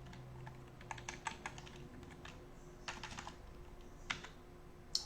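Keystrokes on a computer keyboard, irregular clusters of light clicks with short pauses between, over a faint steady hum.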